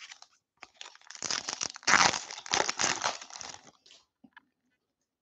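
Baseball card pack wrapper crinkling as it is torn open and pulled off the cards by hand, a dense rustling from about a second in until nearly four seconds in, loudest in the middle.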